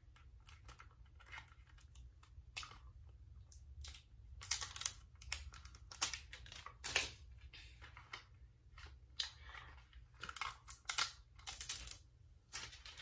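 Hands handling a phone in a plastic case: scattered clicks and taps with crinkling and peeling of the thin plastic protective film on the new phone.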